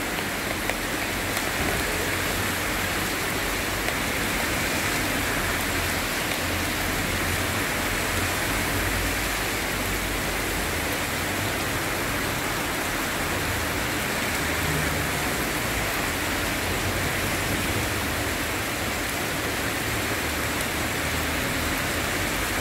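Steady rain falling on a street and pavement, an even, unbroken hiss.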